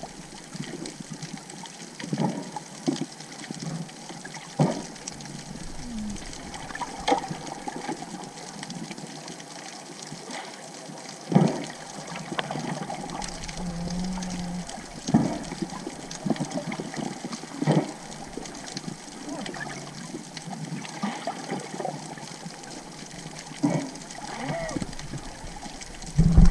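Muffled underwater water noise heard through an underwater camera, with scattered bubbling and a sharp knock or click every few seconds.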